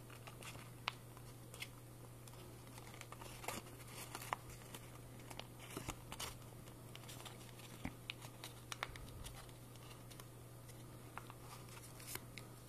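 Faint rustling, crinkling and creasing of a sheet of origami paper being handled and folded as a pre-creased section is sunk, heard as scattered soft ticks and crackles. A steady low hum sits underneath.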